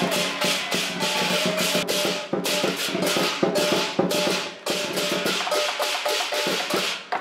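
Lion dance percussion band: a Chinese drum with clashing cymbals and a gong, beating a fast steady rhythm of about three to four strokes a second.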